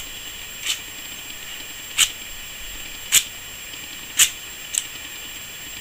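Scissors scraped against another pair of scissors, metal on metal: five short, sharp scrapes about a second apart, the last two close together.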